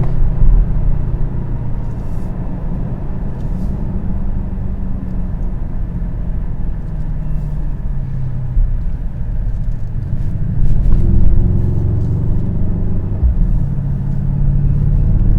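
Mercedes-AMG GLS 63's twin-turbo V8 under way with its exhaust valves open in Sport Plus mode, a steady deep exhaust rumble. The engine note rises and grows louder about ten seconds in.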